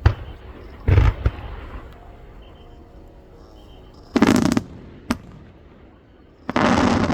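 Aerial firework shells bursting: sharp bangs at the start and about a second in, a longer, louder burst around four seconds in, another sharp bang, and a second long burst near the end.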